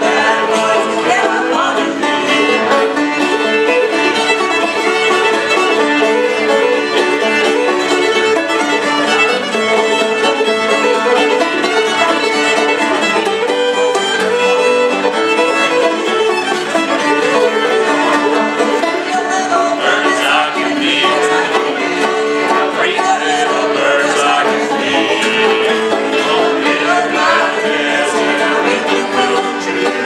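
Old-time string band of fiddle, open-back banjo and acoustic guitar playing a southern Appalachian mountain song, the fiddle to the fore.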